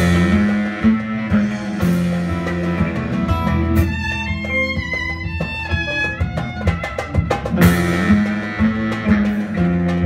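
Live band playing an instrumental passage: plucked oud notes over electric bass, drums and keyboard, with a steady bass line. Cymbal crashes right at the start and again a little before eight seconds.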